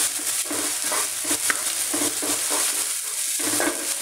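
Chopped onion, garlic and chillies sizzling in a little hot oil in a wok, with a wooden spatula stirring and scraping them in quick repeated strokes, two to three a second.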